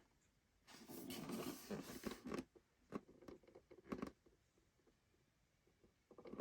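Scratching and rubbing from handling a collectible popcorn container, about two seconds of it, then a few sharp clicks, then near silence.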